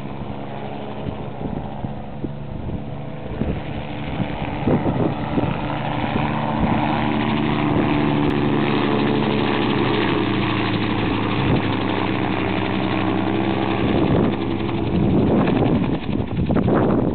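Gyrocopter's engine and propeller droning steadily on its landing approach, growing louder over the first several seconds as it comes in low. Near the end rough, gusty noise breaks over the drone as it touches down.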